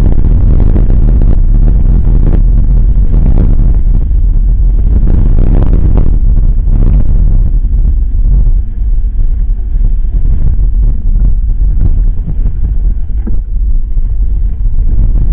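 Loud, steady low rumble of wind buffeting and road vibration on a mountain bike's wheel-mounted action camera as the bike rolls along a gravel dirt road. It eases slightly about halfway through.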